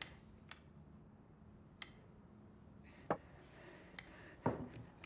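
Quiet room with a handful of faint, scattered clicks and light taps, the firmest one about four and a half seconds in.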